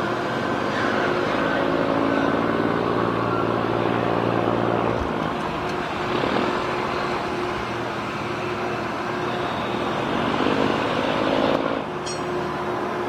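Diesel engine of a steel river cargo barge running steadily, an even low drone; the sound shifts abruptly about five seconds in and again near the end.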